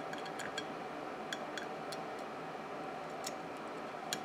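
A few light, irregular clicks of metal multimeter probe tips touching and shifting against a voltage reference circuit board, over a steady faint hiss.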